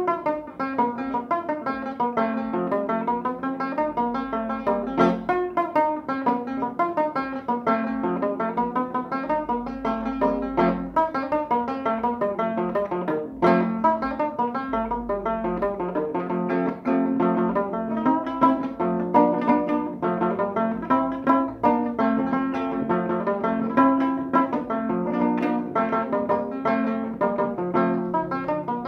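Handmade rustic wooden viola, a Brazilian folk guitar, being played: a steady stream of quick plucked notes over a held low note.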